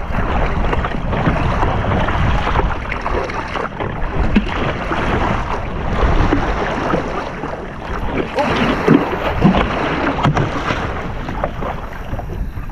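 Water sloshing and splashing against a kayak's hull as it is paddled through choppy sea, with wind rushing over the camera microphone.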